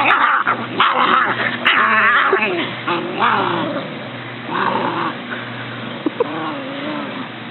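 German Shepherd puppies growling and yipping as they play-fight, loudest over the first few seconds and then dropping to scattered smaller growls.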